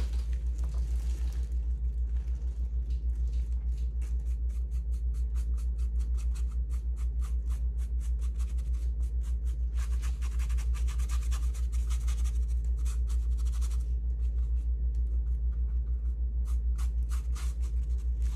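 Paintbrush dabbing and stroking paint in quick, repeated strokes, with a stretch of denser scratchy brushing about ten seconds in. A steady low hum runs beneath and is the loudest sound.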